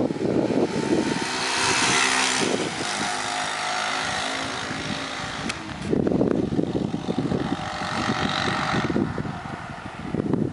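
1998 Yamaha SR125's single-cylinder four-stroke engine as the motorcycle rides past close by with a steady engine note, loudest about two seconds in and fading as it goes away. Wind buffets the microphone before and after the pass.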